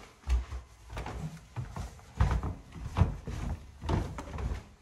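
Footsteps going down a flight of indoor stairs, a dull thud about once a second.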